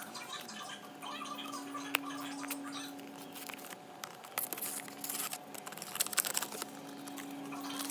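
Packaging being handled during an unboxing: light rustling, scratching and small sharp taps and clicks, with a faint steady hum underneath.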